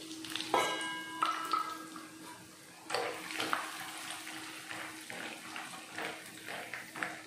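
Raw peanuts deep-frying in hot oil, a dense bubbling sizzle with many small crackles. A short ringing clink comes about half a second in.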